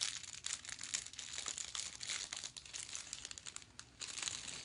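Thin clear plastic jewelry bag crinkling as a beaded necklace is worked out of it, a dense crackle that eases briefly near the end.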